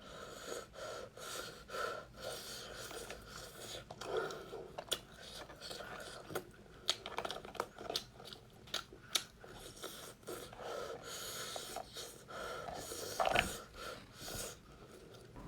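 A person eating close to the microphone: chewing with many irregular wet mouth clicks and smacks, and breaths in between.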